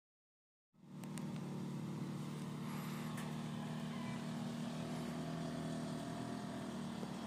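A small engine running steadily, cutting in after a brief silence about a second in.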